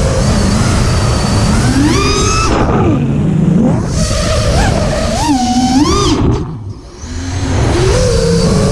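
FPV racing quadcopter's brushless motors whining, the pitch sweeping up and down as the throttle is worked through manoeuvres, with a brief drop in sound about six and a half seconds in when the throttle is cut.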